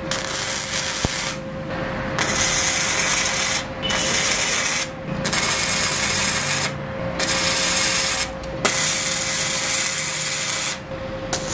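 Gasless flux-cored MIG welding with an ESAB HandyArc Mig 200i: the arc crackles and sizzles in stretches of one to two seconds, stopping briefly about five times and striking again. A faint steady hum sounds underneath throughout.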